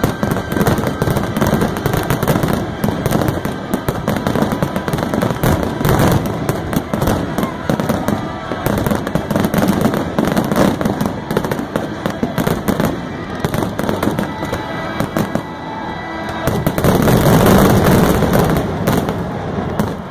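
Fireworks finale barrage: a dense, unbroken run of shells bursting, with rapid bangs and crackling overlapping, swelling loudest a few seconds before the end.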